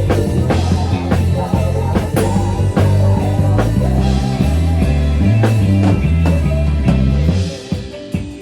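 Rock band music: a drum kit keeping a steady beat over a moving bass line, with the heavy low end dropping out about seven and a half seconds in, leaving lighter drumming.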